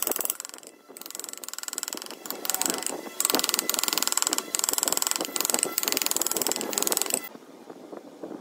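Wooden mallet striking a steel chisel cutting into a wooden block, in rapid light taps; the tapping stops abruptly about seven seconds in.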